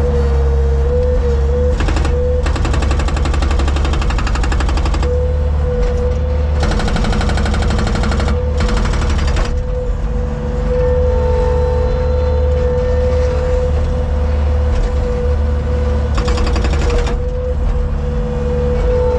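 Loader's engine running steadily under a steady whine, while its hydraulic breaker attachment hammers concrete in rapid repeated blows. It hammers in four bursts: briefly about two seconds in, then for about three seconds, again for about three seconds, and once more briefly near the end.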